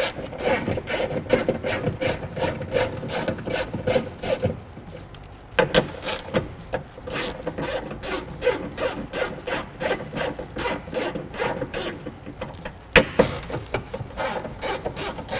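Hand socket ratchet on a long extension clicking in a quick, even rhythm as it backs out the 10 mm bolts holding the power window regulator and motor inside the door, with a short break about a third of the way through and one sharper click near the end.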